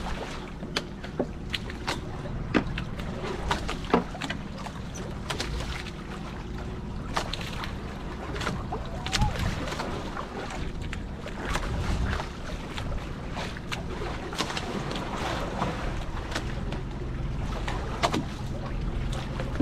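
Fishing boat's engine running steadily as a low rumble, with irregular sharp clicks and knocks over it.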